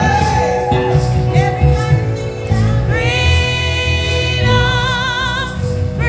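Gospel praise-and-worship band and singers performing at a church sound check, with heavy bass under the voices. From about three seconds in, the singers hold long notes with vibrato.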